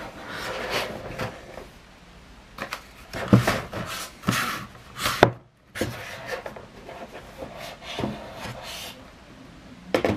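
A cardboard shipping box and the long, narrow cardboard boxes inside it being handled on a wooden tabletop: cardboard rubbing and scraping, with a few sharp knocks about halfway through as the small boxes are set down on the wood.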